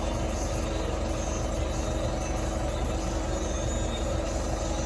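Tractor engine idling steadily, a constant low rumble heard from inside the cab.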